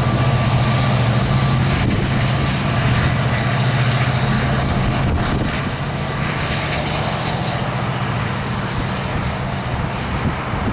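Diesel train locomotive engine running with a steady low drone that weakens about halfway through.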